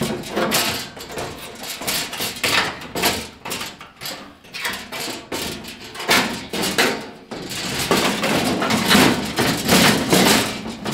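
A loose sheet-steel replacement floor pan being shifted and pressed into place in a car body: repeated knocks and clatters of the panel against the body, with a longer stretch of scraping and flexing of the metal in the second half.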